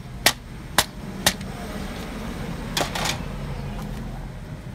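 Parts of a partly disassembled laser printer clicking and knocking as it is handled: three sharp clicks in the first second and a half, then a louder, longer knock with rustling just under three seconds in, over a steady low hum.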